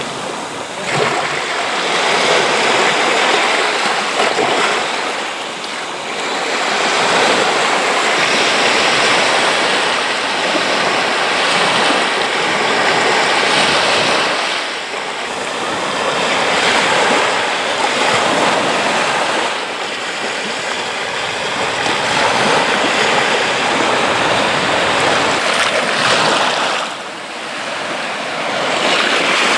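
Small surf washing up over the sand at the water's edge and draining back, the wash swelling and easing every few seconds.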